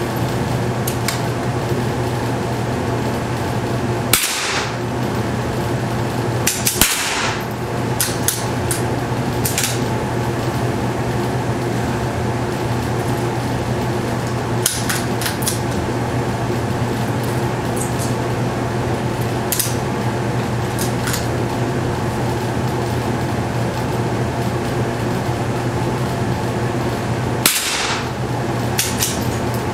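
.22LR rifle shots, about a dozen sharp cracks at irregular intervals. The loudest come about four and seven seconds in and near the end, with the rest fainter. A steady low hum runs underneath.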